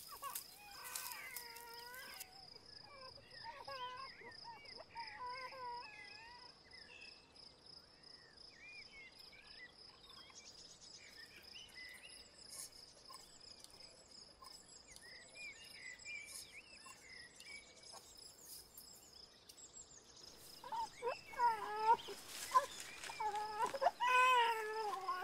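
An infant crying in short, wavering wails, fainter in the first few seconds and loudest near the end, over a steady high-pitched insect drone.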